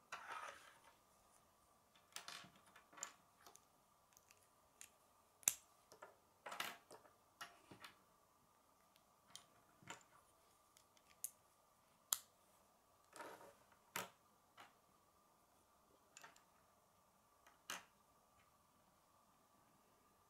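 Plastic K'nex connector pieces being handled, fitted together and set down on a wooden table: scattered sharp clicks and taps at irregular intervals, over a faint steady high hum.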